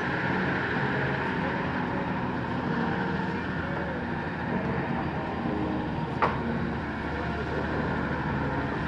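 A steady engine drone, with a single short click about six seconds in.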